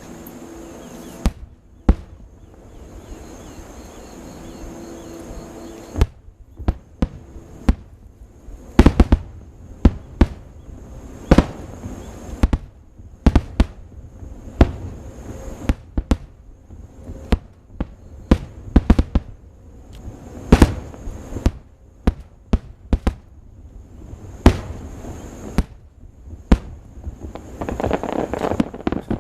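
Aerial fireworks shells bursting in an irregular series of sharp bangs, several close together at times, with a rising crackle near the end.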